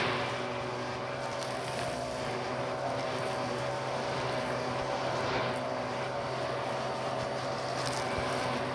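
Bissell PowerLifter vacuum cleaner running steadily through its bare hose wand, a constant motor drone with rushing suction air. A few faint sharp ticks of grit being sucked into the hose.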